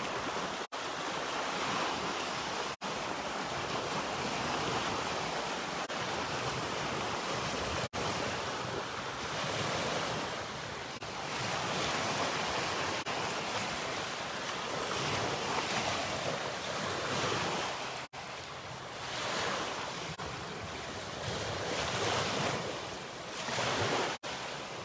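Lake waves washing onto the shore in a steady, swelling rush, with wind buffeting the microphone. The sound drops out briefly several times.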